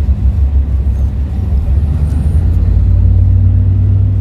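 Steady low rumble of a bus on the move, heard from inside the cabin: engine drone and road noise.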